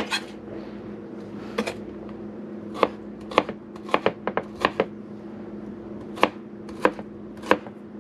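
Kitchen knife chopping food on a cutting board: about a dozen sharp, irregular strokes, some in quick runs, over a steady hum.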